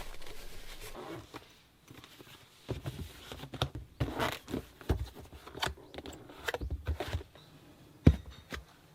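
Irregular light clicks and knocks of objects being handled, with one sharper knock about eight seconds in.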